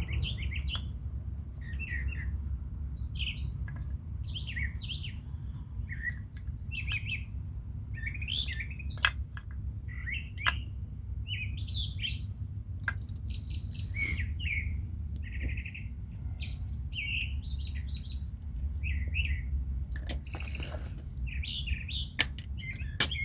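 Small birds chirping and calling repeatedly over a steady low rumble, with a few sharp clicks now and then, one about nine seconds in and one near the end.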